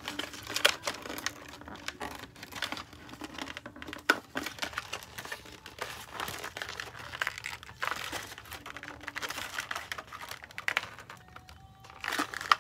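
Printed Barbie Basics packaging wrap being handled and unfolded, crinkling irregularly with scattered sharp crackles and a louder snap about four seconds in.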